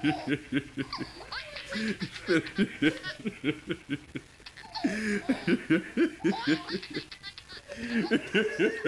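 A man laughing uncontrollably over a Skype video call, in runs of quick ha-ha pulses with brief pauses about four and seven seconds in.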